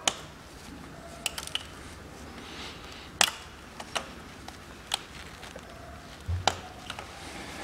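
Irregular sharp plastic clicks and taps of fuel return line clips and connectors being pried up and worked off the diesel injectors with a screwdriver, with a dull knock about six seconds in.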